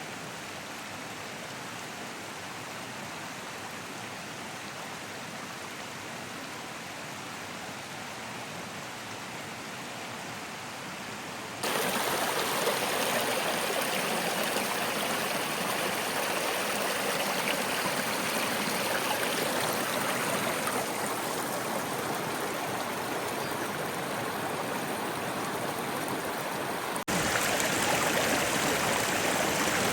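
Creek water running steadily, a continuous rush of flowing water. It steps suddenly louder about twelve seconds in and again near the end, as at cuts to closer shots of the water.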